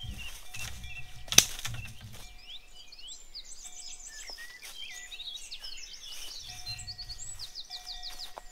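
Woodland songbirds chirping and trilling, with a fast repeated trill near the end. A single sharp knock about a second and a half in stands out above the birdsong.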